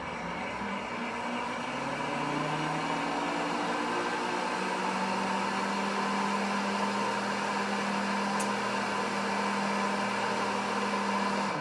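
Pampered Chef Deluxe Cooking Blender running on pulse, blending heavy whipping cream into the eggnog until thick. The motor's pitch climbs over the first few seconds, then holds steady until it stops at the very end.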